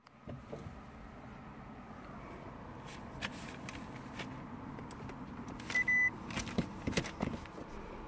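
A short high electronic beep about six seconds in as the Prius's hybrid system is powered up, over a faint low cabin hum and scattered handling clicks; the engine is not yet turning.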